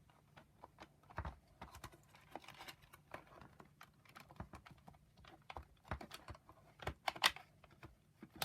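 Irregular small clicks and taps of plastic parts being handled as wires are eased out of the plastic clips in a Shark vacuum power nozzle's housing, with a slightly louder click about 7 seconds in.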